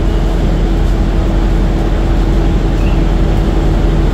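A steady mechanical drone with one constant hum and low rumble, the sound of an engine running without change.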